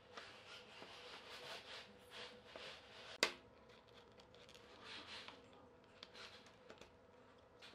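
Faint handling sounds of thin pine strips being pressed and adjusted by hand on a wooden workbench: short scraping and rubbing of wood on wood, with one sharp click a little over three seconds in, over a faint steady hum.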